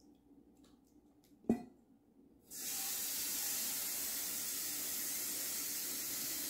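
A single sharp knock about a second and a half in, then a kitchen tap is turned on and water runs steadily into the sink.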